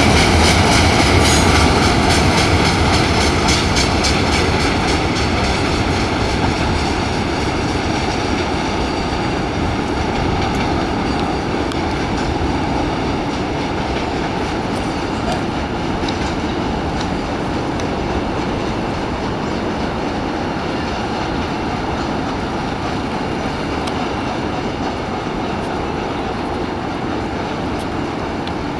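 CSX freight cars' steel wheels rolling on the rails: a steady rumble with rhythmic clickety-clack over the rail joints, fading slowly as the train draws away.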